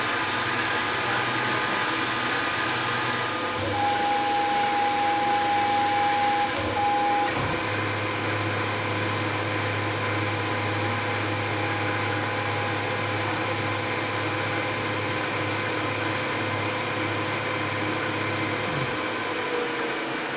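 Milling machine spindle running while a boring cutter re-bores the throttle bores of a Porsche mechanical-fuel-injection manifold, with coolant spraying; a steady machine hum and whine. The sound shifts a few seconds in, and a steady high tone sounds for about three seconds before the spindle runs on with the cutter clear of the part.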